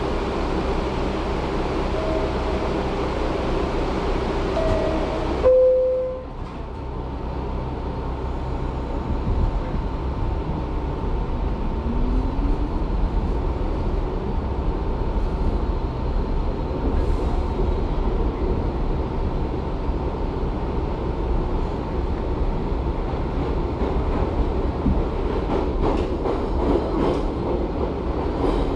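Interior of an R62A subway car running on the track: a steady rumble with a few short tones in the first few seconds, after which the noise drops abruptly to a lower, steady running sound with scattered clicks.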